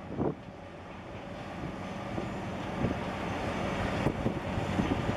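Low engine rumble with a steady hum from a large container ship passing close by, growing gradually louder. There is a brief louder sound just after the start.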